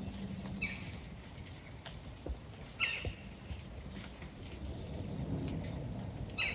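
A bird giving three short, harsh calls, spaced a few seconds apart, over a faint low steady hum.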